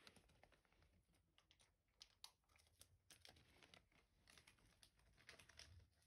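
Near silence, with faint, irregular small clicks and crackles scattered through it over a low hum.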